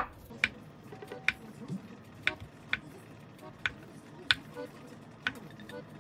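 Kitchen knife slicing through a kamaboko fish cake and tapping down on a wooden end-grain cutting board, about eight sharp knocks at an uneven pace, one for each slice.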